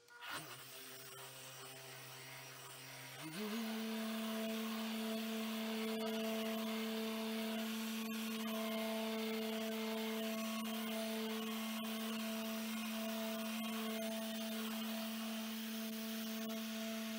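RUPES electric polisher starting up at a low speed, then about three seconds in speeding up to a higher, steady hum as its pad works polish over the painted spoiler.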